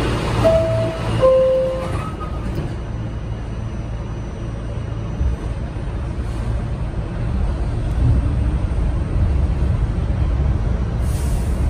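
Subway door-closing chime, two descending tones about a second in, over the low rumble of a subway train heard from inside the car. The rumble grows louder near the end as the train gets moving.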